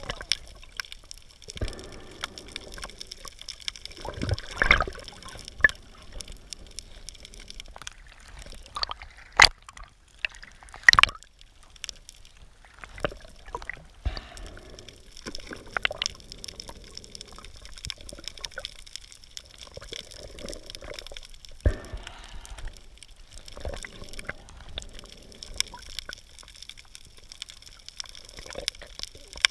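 Muffled underwater water sounds, bubbling and sloshing in patches every few seconds, with a few sharp clicks and knocks.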